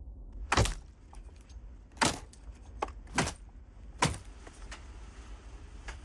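Four loud, sharp knocks spread over the first four seconds, with a few fainter clicks between them, over steady background noise.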